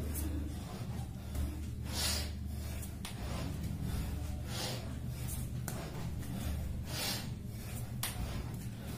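A person breathing hard during bodyweight exercise, with short, noisy breaths every second or two, the strongest about every two and a half seconds. A steady low hum runs underneath.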